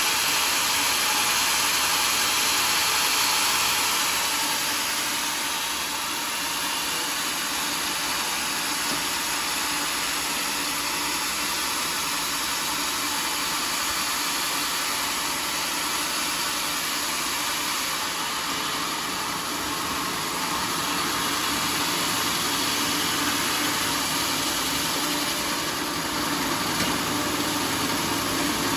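Homemade sawmill running steadily, its engine and blade making a continuous mechanical noise. A brighter hiss in the first four seconds then eases off.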